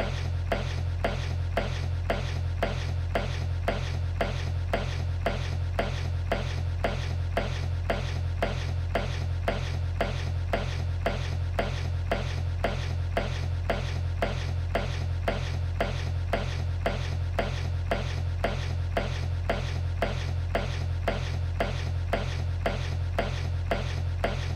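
Dull thuds of towel-wrapped bars of soap beating a man in his bunk, evenly spaced several times a second, over a steady low hum.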